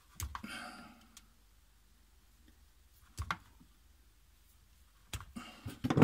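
Stripping insulated mains cable with side cutters: a short scraping rustle near the start, a sharp snip about three seconds in, and a cluster of clicks and rustles near the end as the wire is handled.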